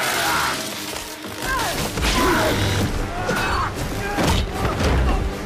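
Film fight-scene soundtrack: dramatic music mixed with several heavy thuds, crashes and low booms, and gliding, screeching tones over them.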